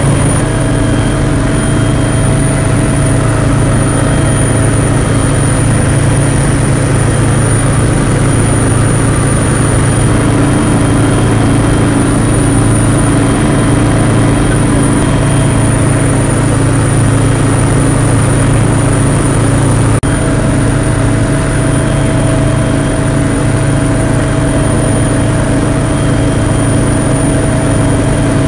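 Loud, steady aircraft engine noise heard from on board, a deep hum with a thin high whine above it.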